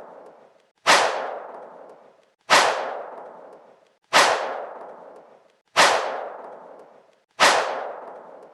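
The same sharp crack sound effect played five times, about every 1.6 seconds, each hit fading away over a second or so.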